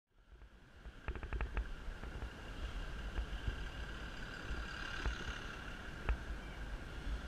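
Road and wind rumble on a bicycle-mounted action camera's microphone while riding in traffic, with a bus running close alongside and a faint steady whine. A quick run of clicks comes about a second in, and a single click comes near the end.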